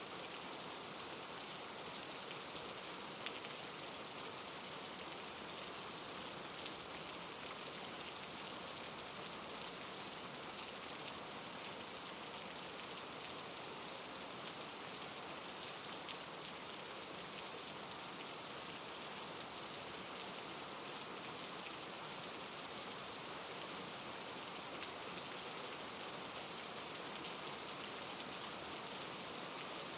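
Steady soft rain falling, an even hiss with faint scattered drop ticks.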